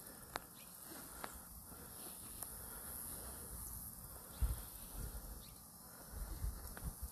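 Faint, steady, high-pitched chirring of insects outdoors. A few faint ticks come in the first couple of seconds, and low bumps come about four seconds in and near the end.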